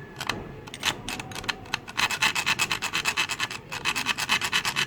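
A small saw cutting into a stuck metal screw head to deepen a slot for a flat screwdriver, rasping stroke after stroke. A few irregular strokes are followed, about two seconds in, by a quick, steady run of short strokes.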